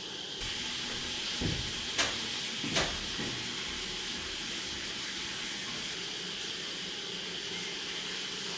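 A steady hiss, with a dull knock and then two sharp clicks a little under a second apart near the start.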